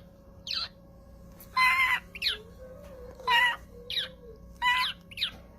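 Pet parrot calling: a series of short squawks alternating with quick whistles that fall in pitch, about eight calls in all.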